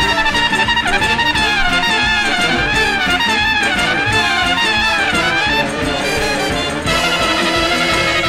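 Background music led by a trumpet playing a winding melody over a brass ensemble; the lead line drops out about two-thirds of the way through and a new section follows.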